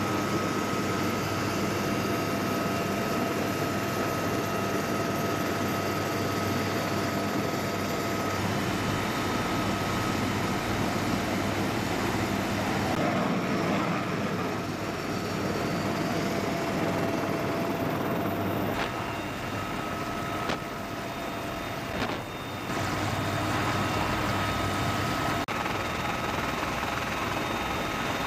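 Military helicopter turbine engines and rotors running on the flight line: a steady turbine whine over rotor and exhaust noise. The sound shifts abruptly several times around the middle.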